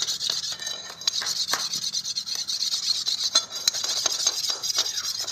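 A curved iron strip is slid and set down by hand on a stone slab, giving small scattered metallic clicks and scrapes over a steady high hiss.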